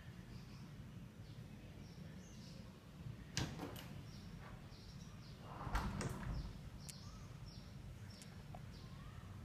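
An interior door being moved and shut in an empty flat: a sharp click a little over three seconds in, then a louder knock with rustling around six seconds. Under it runs a low steady room hum, with faint high chirps repeating.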